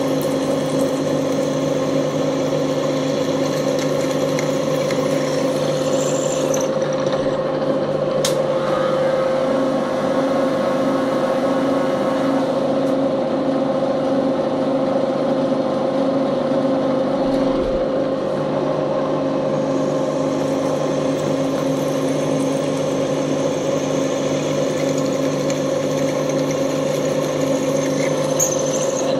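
Bridgeport milling machine running steadily with a constant hum, drilling holes in components held on a jig. There is a sharp click about eight seconds in.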